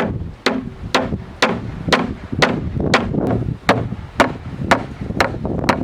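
A tool striking wood in steady, even blows, about two a second, with a short pause partway through.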